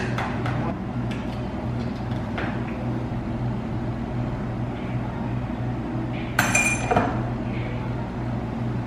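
A metal spoon stirring ice in a tall glass, clinking against the glass, over a steady low hum. A brighter ringing clink comes about six and a half seconds in.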